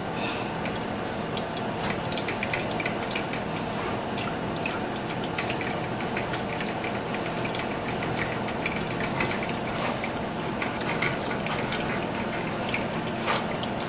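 A silicone spatula scraping and pressing blended chili broth through a fine-mesh metal strainer, the liquid running and dripping into the pot below: a steady wet swishing with many small irregular scrapes and clicks. A faint steady hum sits under it.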